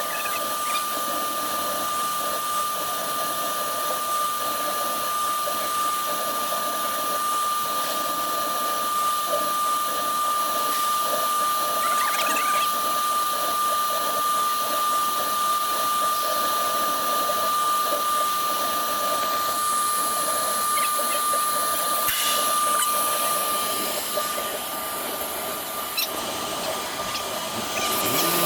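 Woodworking CNC router's spindle running with a steady high whine while the bit engraves MDF, over a continuous cutting noise.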